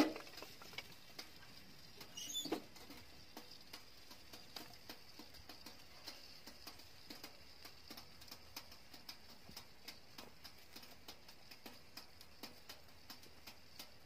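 Wood fire crackling in a small portable tent stove: sparse, irregular pops and ticks, with a sharp crack right at the start and a knock about two and a half seconds in, over a faint steady high-pitched whine.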